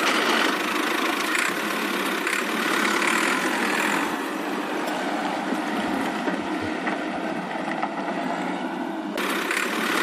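Toy tractor's small electric motor and gearbox whirring steadily as it drives along, a little softer about four seconds in.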